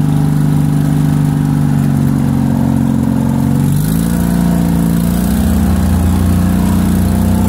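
A vehicle's engine running steadily, heard from inside the cab while driving; about four seconds in its note changes, with a lower tone coming in and the upper tones shifting.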